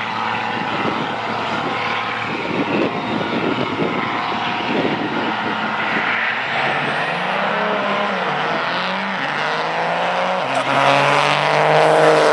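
Diesel pickup trucks drag racing, engines running hard under full throttle and climbing in pitch through several gear shifts. Near the end a Dodge Ram's Cummins turbo-diesel grows loud as it passes close by. A thin high whistle rises in pitch through the second half.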